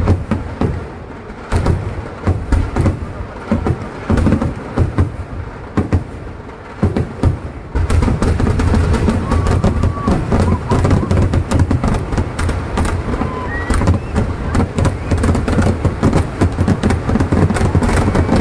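Festival fireworks going off in large numbers: irregular loud bangs for the first eight seconds or so, then a dense, continuous barrage of rapid explosions with a deep rumble underneath.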